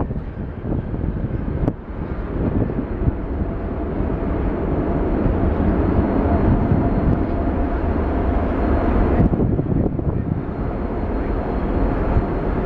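Jet airliner's engines roaring, growing louder over the first several seconds and then holding steady, with brief dips about two seconds in and near the end.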